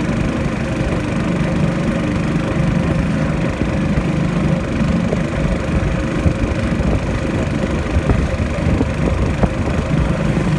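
Boat engine running steadily at a loud, even drone.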